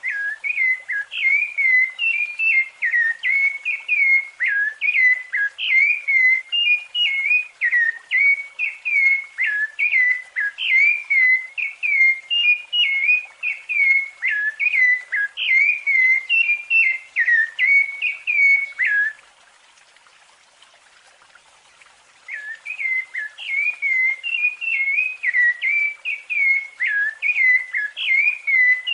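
Rufous-bellied thrush (sabiá-laranjeira) singing its fluted song: a fast run of short, clear whistled notes, many slurring down, about two a second. The song breaks off for about three seconds after some nineteen seconds, then resumes.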